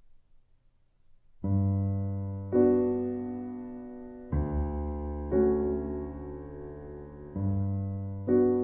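Background piano music: slow, sustained chords struck about once a second, starting about a second and a half in after near silence.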